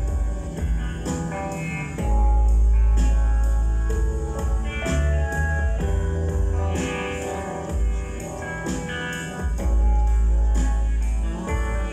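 Recorded rock music with guitar, bass and drums, with long held bass notes under plucked guitar notes.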